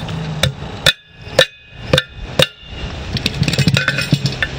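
Hammer tapping a tire valve stem into a lawn tractor wheel rim: five sharp strikes about half a second apart, each leaving a short metallic ring. Lighter clicking and rattling follow.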